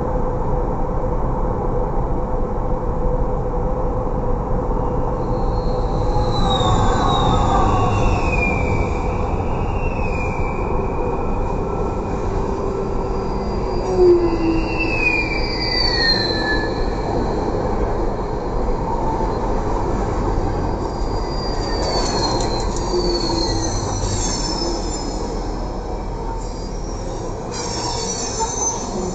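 Coal train rolling past overhead: a steady rumble of the cars, with repeated high wheel squeals that slide down in pitch, several times over.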